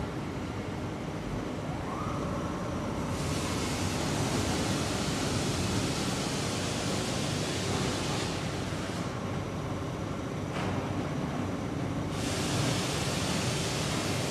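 Steady running noise of a melamine lamination line's machinery, with two long stretches of loud hissing, one starting about three seconds in and lasting some five seconds, the other near the end.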